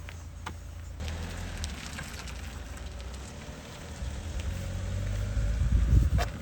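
Strong wind gusting and buffeting the microphone: a low rumble that picks up about a second in and grows to its loudest near the end, with light ticks and rustles.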